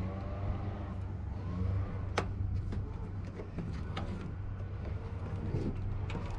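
Red backing liner being peeled off the adhesive tape of a pickup's bed rail cap, with short squeaks and a few light clicks and taps, over a steady low hum.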